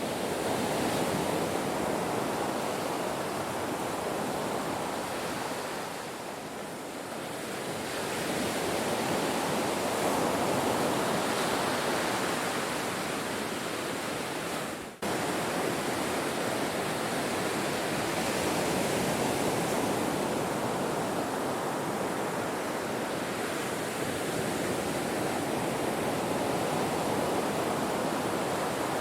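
Ocean waves breaking on a shore: a continuous rushing wash of surf that swells and eases over several seconds, with a brief sudden dip in level about halfway through.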